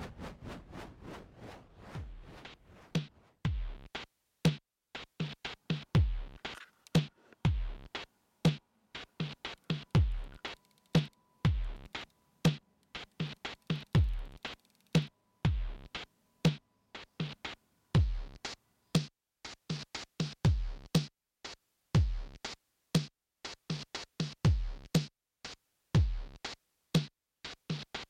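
Electronic background music with a drum-machine beat: deep kick thumps that drop in pitch and sharp hits in a steady rhythm.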